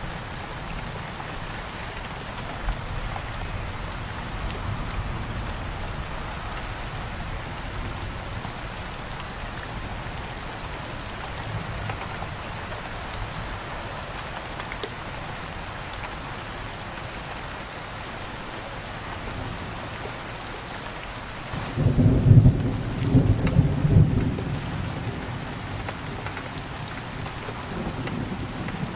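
Heavy rain pattering steadily on a window pane, with a low rumble of thunder about three quarters of the way in that lasts a couple of seconds and is the loudest part.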